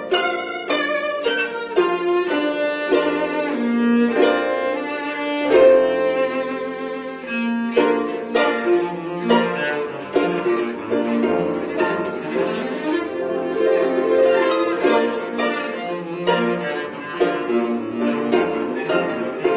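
Cello and harp playing together: a sustained bowed cello line over a stream of plucked harp notes and arpeggios.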